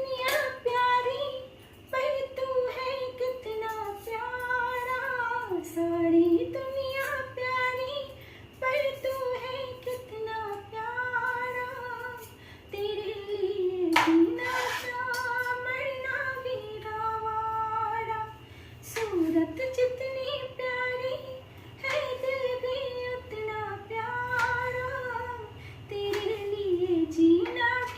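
A woman singing a Hindi film song solo, high and melodic in long phrases with short breaths between them, with a couple of sharp clicks partway through.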